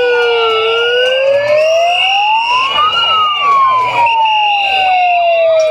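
Several sirens wailing at once: the loudest rises slowly to a peak about halfway through and falls again, over other overlapping rising and falling wails, with a higher steady tone sounding on and off every second or so.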